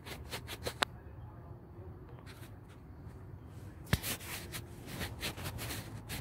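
Handling noise from the camera being fiddled with: fingers rubbing and tapping on it and its microphone in a series of short scratchy rubs and clicks, with a sharper click about four seconds in.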